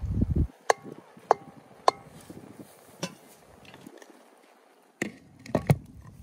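Cooking utensils knocking and clinking against cookware. There are three evenly spaced ringing taps about a second in, then a single knock, then a few sharper knocks near the end, after a brief low rumble at the start.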